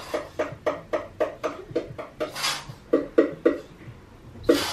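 Squeezable plastic bottles of white school glue being squeezed over and over, each squeeze sputtering air and glue out of the nozzle in a short wet squelch, about four a second, with one longer hiss midway and a brief pause near the end.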